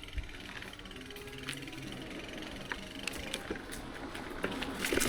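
Mountain bike rear freehub buzzing while coasting: a rapid, even ticking of the pawls, with scattered sharp clicks from the bike, the whole getting louder toward the end.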